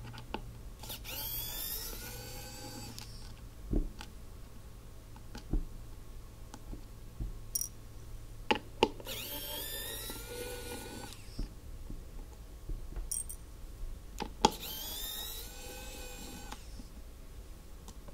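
A small electric motor whirring up in pitch and levelling off, three separate runs of about two seconds each. Sharp clicks and knocks fall between the runs, and the loudest click comes just before the second and third runs.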